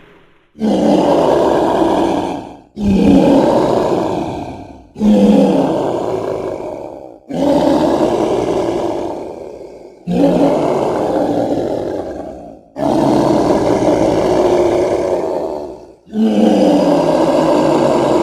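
Dinosaur roar sound effects made up for the Kasai rex, seven roars one after another. Each starts suddenly and fades away over two to three seconds, and the last is still going at the end.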